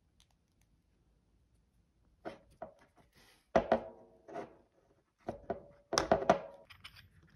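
Short knocks and clinks of a stainless steel fitting and a hose-clamped rubber cap being handled and fitted together. They come in three brief clusters from about two seconds in, some with a short metallic ring.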